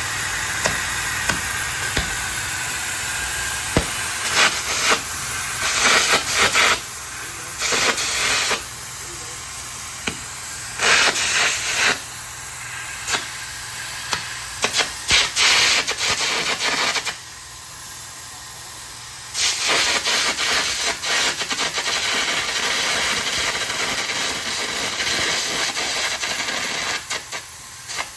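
Air carbon arc gouging torch in use: a loud, harsh hiss of compressed air mixed with crackling from the arc, coming in uneven bursts. It breaks off briefly a little past halfway through, then starts again.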